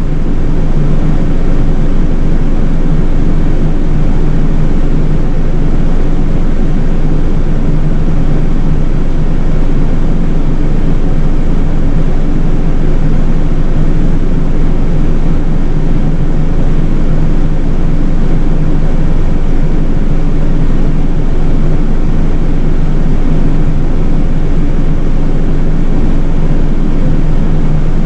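City bus under way, heard from inside the cabin: a steady drone of its engine and road noise.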